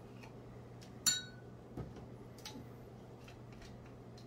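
Measuring spoon and spice containers handled. A sharp, ringing clink about a second in, then a few light ticks and taps, over a faint steady low hum.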